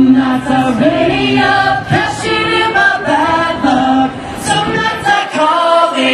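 A small mixed group of male and female voices singing a cappella in harmony into handheld microphones, with no instruments.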